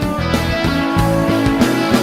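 Background music with a steady beat, playing as the video ends.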